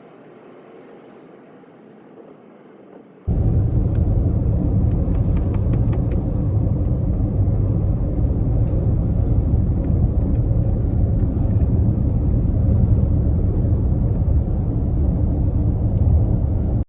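Moving car: a loud steady rumble of wind and road noise, with the heaviest energy very low. It cuts in suddenly about three seconds in after a faint steady hiss, with a few faint clicks over it.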